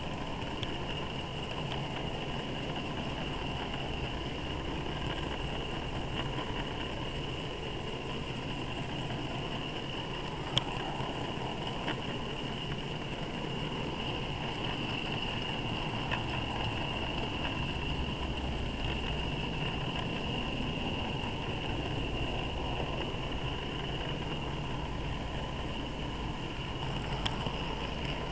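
Model railway freight train running along the track, heard from a wagon in the train: a steady rumble of wheels on rail with a constant high whine, and a few sharp clicks over rail joints and points, the loudest about ten and a half seconds in.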